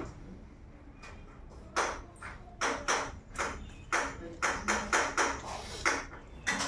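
Crackling of a crumpled dry scrap as a rhesus macaque picks through it with its hands: a quick, irregular run of short crinkles starting about two seconds in.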